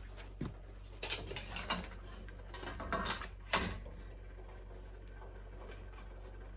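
A handful of metal clicks and clanks as the speckled enamel water bath canner is opened and its wire jar rack is lifted against the pot, the sharpest knock about three and a half seconds in. After that only a steady low hum.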